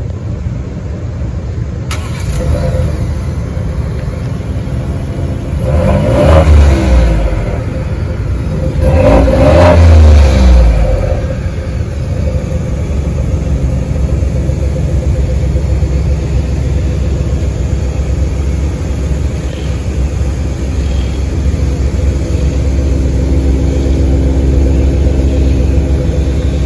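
2023 Ford F-150 Tremor's 3.5-litre EcoBoost V6, heard through its dual exhaust. It idles, is revved twice about three seconds apart, each rev climbing and falling back over a second or two, then settles into a steady idle.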